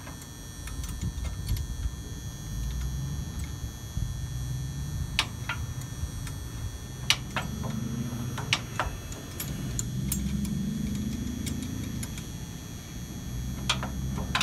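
A hand wrench tightening the bolt on a semi-trailer landing-gear crank handle: scattered sharp metallic clicks and clinks of the tool on the bolt and handle, over a steady low rumble.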